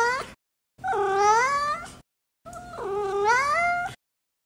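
Domestic cat meowing: the end of one meow, then two long meows of about a second and a half each, each dipping and then rising in pitch, with clean silence between them.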